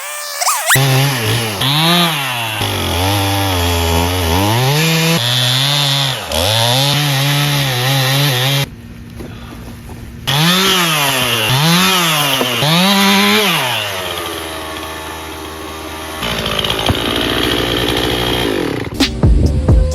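Two-stroke chainsaw running and being revved up and down again and again, with two short drops to a lower, quieter run, then a few knocks near the end.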